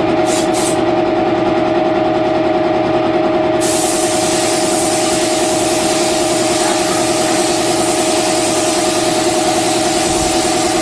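Steady drone of an air compressor's motor running. Two short hisses of a paint spray gun sound near the start, then about three and a half seconds in the gun's hiss starts and keeps on as paint is sprayed onto the car body.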